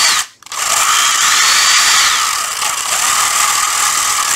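Hitachi 12V cordless impact driver running free with no load, its motor whine rising and falling as the trigger is squeezed and eased. It stops sharply just after the start, then spins up again. The tool is being run to check its variable speed, brake and reverse, which the seller calls OK.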